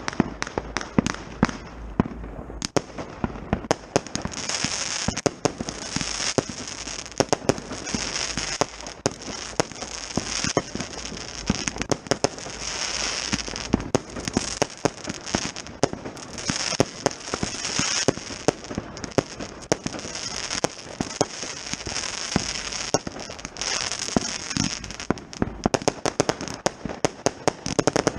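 Consumer firework batteries (cakes) firing: a Diamond Cube and a Blackboxx Schwarze Witwe. Rapid sharp bangs and launch reports alternate with repeated bursts of hissing crackle every second or two.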